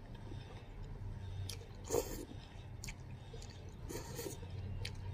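A person slurping and chewing instant noodles. There is a loud slurp about two seconds in and another around four seconds, with a few short clicks between them.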